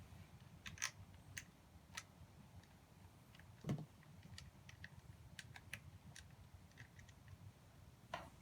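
Faint, irregular small clicks and taps of parts and hardware being handled during a motorcycle battery install, with one duller knock about four seconds in.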